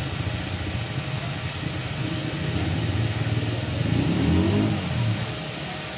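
A motor vehicle engine running steadily, its pitch rising and then falling about four seconds in, when it is loudest.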